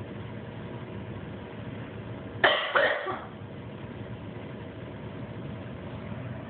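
A person coughs twice in quick succession, about two and a half seconds in, over a steady low room hum.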